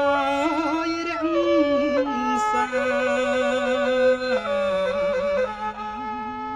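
A man chanting Khmer verse in the traditional sung recitation style, holding long wavering notes joined by ornamented turns.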